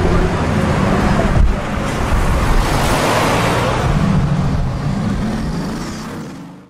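Jaguar F-Type R's supercharged V8 running hard, with one sharp pop about a second and a half in. The sound fades out near the end.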